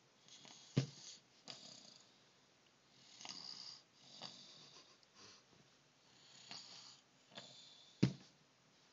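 Snoring: a series of breathy snores roughly once a second. Two short sharp thumps, about a second in and near the end, are the loudest sounds.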